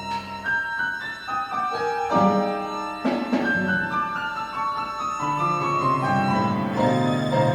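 Chamber music from a quintet: piano playing prominently, with bowed strings holding longer notes underneath from about five seconds in.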